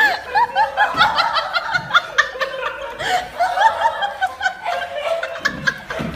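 A person laughing in quick, high-pitched giggles, several a second, with scattered light clicks.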